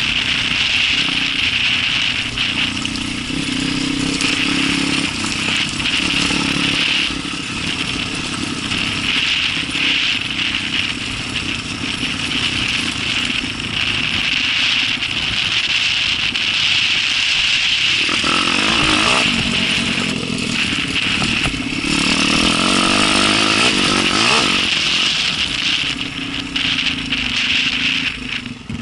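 Enduro dirt bike engine running under load as it is ridden. A second engine's higher, changing note joins for a couple of seconds about two-thirds of the way in, then again a few seconds later.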